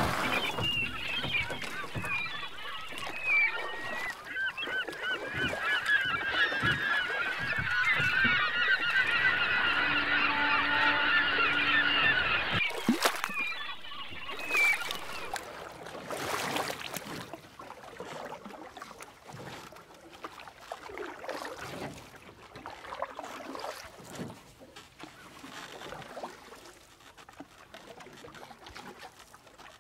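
A flock of birds calling over one another in many overlapping, wavering cries, which stop abruptly about halfway through; after that there is only faint noise with a few scattered sounds.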